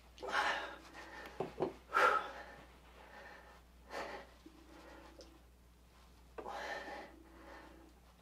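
A man breathing hard under strain, forcing out sharp breaths about every two seconds, some with a low strained vocal edge, as he bench presses a pair of heavy 120-pound dumbbells.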